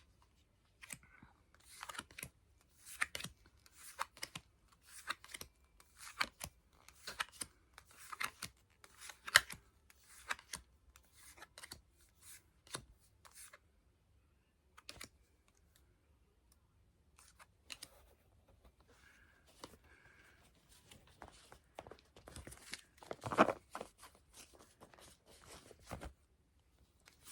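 Yu-Gi-Oh trading cards being handled and flipped through: a run of short, irregular rustles and snaps of card stock and packaging, with a pause of a few seconds in the middle and a louder rustle near the end.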